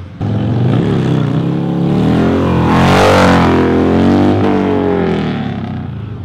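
Modified Harley-Davidson Sportster's V-twin engine revving as the motorcycle rides past, growing louder to a peak about three seconds in, then fading away.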